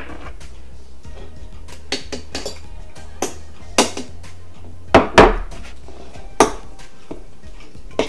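Metal forks clinking and scraping against ceramic salad bowls: a string of sharp, irregular clinks, the loudest two close together about five seconds in.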